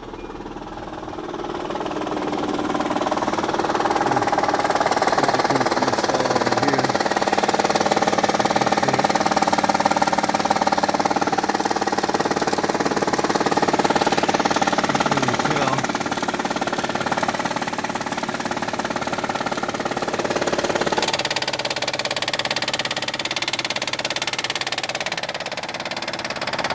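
2004 Hyundai Sonata engine idling with a rapid, steady clicking noise, growing louder over the first few seconds.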